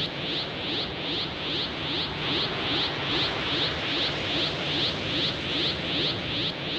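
Looped sound effect: a hissing pulse repeating evenly, about two to three times a second.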